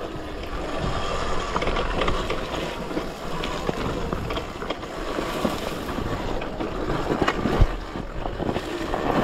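Talaria Sting electric dirt bike ridden up an off-road trail: wind rushing over the microphone and the tyres on dirt and stones, with scattered knocks and a faint steady whine.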